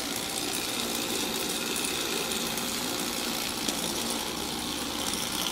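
Small electric Lego Technic motor and plastic gears running steadily, driving a Lego locomotive along wooden track with a continuous mechanical whir.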